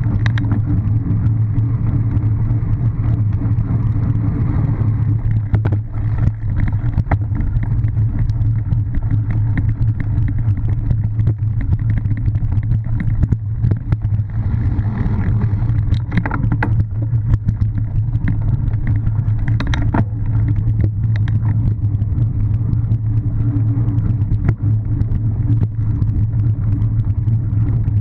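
Steady low rumble of wind and tyre noise on a bike-mounted camera's microphone as a cyclo-cross bike rides over gravel and grass, with frequent knocks and rattles from the bumps.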